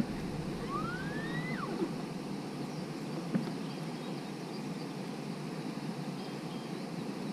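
Steady low rushing noise on a small fishing boat, with a brief whistle that rises and then drops sharply about a second in, and a single short knock about three seconds in.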